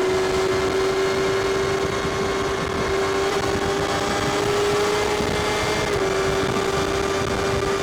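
Kawasaki Ninja ZX-6R's inline-four engine and exhaust running at a steady cruising speed, the engine note holding nearly level and creeping slightly higher, with a small dip about six seconds in.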